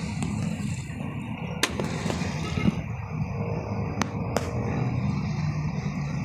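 Steady low rumble of wind on the microphone by open water, broken by a few sharp clicks: one a little under two seconds in, and two close together just past four seconds in.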